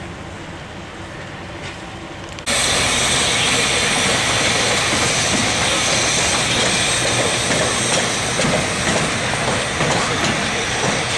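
Quieter station ambience that cuts off abruptly about two and a half seconds in to loud rail noise: a train running close by, a steady rush of wheel and track noise with hiss.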